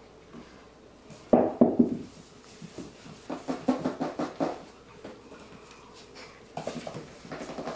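Labradoodle puppies playing on a hardwood floor and blanket: irregular knocks and scuffles in three bouts, the loudest about a second and a half in.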